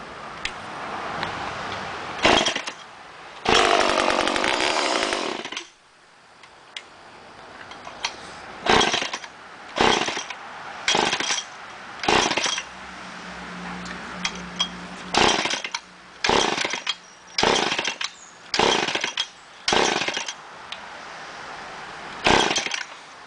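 Poulan 245A two-stroke chainsaw being pull-started. About three seconds in it catches, runs for about two seconds, then dies. A long series of short pull-start bursts follows, roughly once a second, without the engine keeping running: the saw is hard starting and won't stay running.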